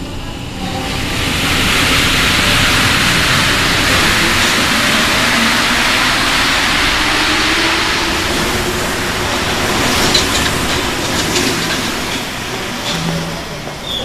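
RATP MP73 rubber-tyred Métro train pulling out of the station: a rushing hiss from the tyres and running gear builds up and holds, with a rising whine from the traction motors as it gathers speed. A few sharp clicks come near the end.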